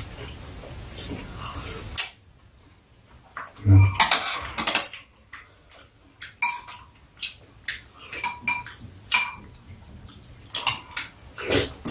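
Metal spoons and chopsticks clinking and scraping against ceramic bowls during a meal: a long string of short, sharp clinks, several with a brief ring. About four seconds in there is one heavier, duller knock.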